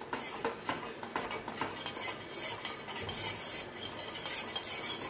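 Steel spoon stirring sugar and water in a stainless steel pot, scraping and clinking against the bottom and sides over and over while the sugar dissolves for a syrup.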